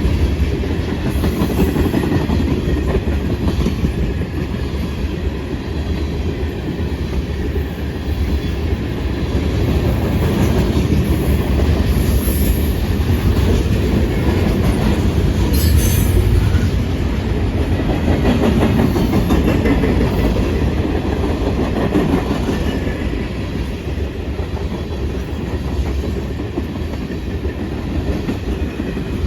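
Freight cars of a CN train rolling past, their wheels clattering steadily over the rail joints, with one sharp clank about halfway through.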